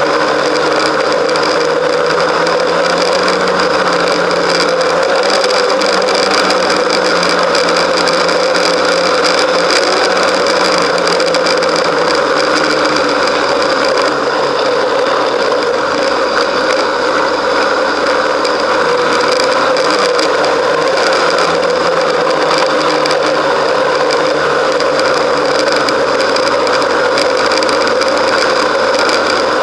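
Snowmobile engine and track running steadily at trail speed, heard from on board the machine, at an even loudness with no let-up.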